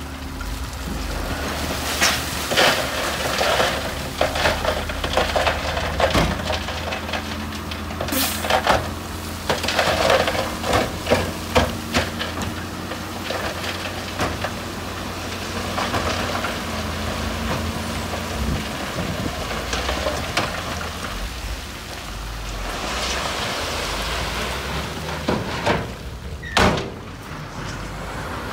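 Heavy earthmoving machine's diesel engine running steadily while rocks clatter and knock against each other and the steel blade or bucket, in dense rattling bursts through the first half, with one sharp knock near the end.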